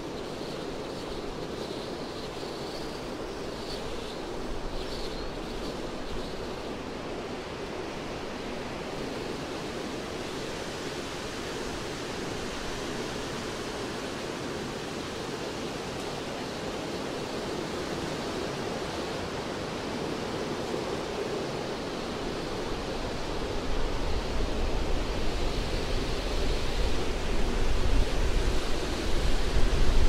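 Wind rushing steadily through forest treetops. It swells louder in gusts over the last several seconds, with a low rumble underneath.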